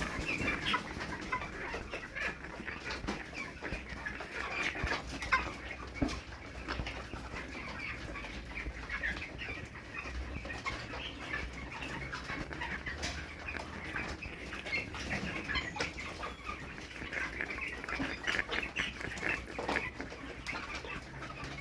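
A flock of broiler chickens chirping, with short coughs and wheezing throughout: the respiratory noise of chronic respiratory disease (CRD), which the farmer takes to be afflicting the whole flock.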